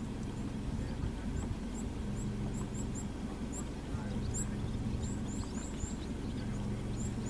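A vehicle engine idling with a steady low hum, while small birds give short, high chirps over it, repeatedly from about a second in.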